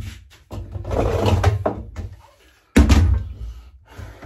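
A Partner K650 petrol cut-off saw is handled and turned over on a chequer-plate metal bench. Scraping handling noise is followed by a loud thud about three seconds in as the saw is set down.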